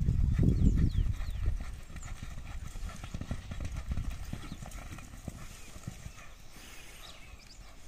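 Hoofbeats of a horse galloping on a sandy dirt track with a steer running beside it: rapid thudding, loudest in the first second or so, then fading.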